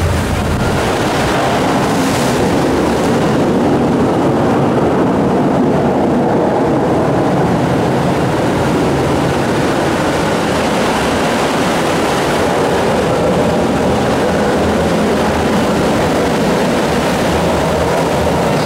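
Steady, loud rushing noise of water around a flume-ride boat moving through a dark show scene, with no distinct events.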